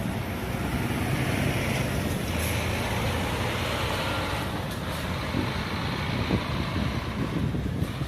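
Intercity coach's diesel engine running steadily as the bus moves off, with a short high hiss about two and a half seconds in.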